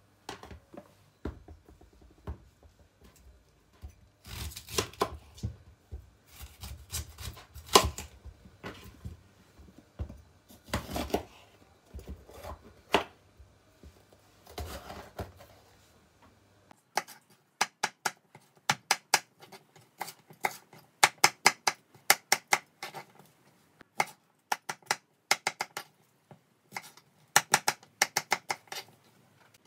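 Kitchen knife cutting fennel and bell peppers on a plastic cutting board: scattered slicing and handling noises at first, then quick runs of chopping strokes from about halfway.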